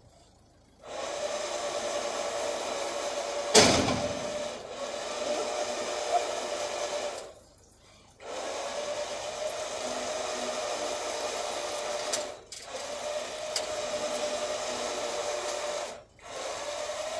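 Electric winch motor on a car-transporter trailer, running with a steady whine in long pulls broken by brief stops, as a car is winched onto the bed. A sharp clunk sounds about three and a half seconds in.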